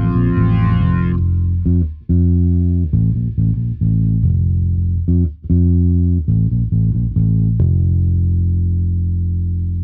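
Closing bars of a band's song: about a second in the fuller mix drops away, leaving bass and guitar playing short phrases with brief stops. It ends on one long held low note that slowly fades.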